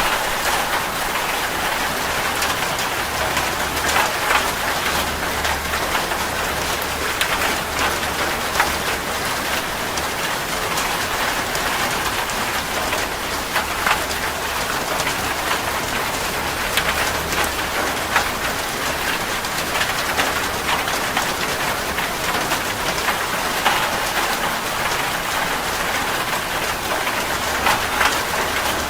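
Heavy rain drumming on a metal roof: a steady dense hiss with many sharp individual drop strikes. A faint low rumble comes and goes underneath.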